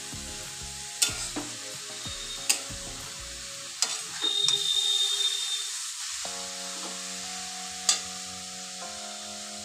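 A metal spatula stirs and scrapes grated carrots in a metal kadai over a steady sizzle, with a few sharp clinks of spatula on pan and a louder scrape about four seconds in. The carrots' own juice is cooking off.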